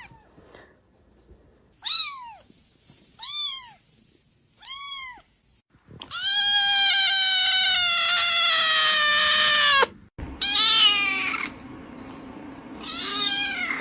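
Kittens meowing: three short, high-pitched meows about a second and a half apart, then one long meow of about four seconds that falls slightly in pitch. After a brief break come two more short meows.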